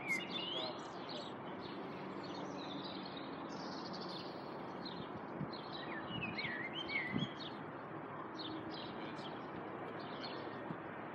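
Small birds chirping and singing: many short chirps and whistled notes, over a faint steady background noise.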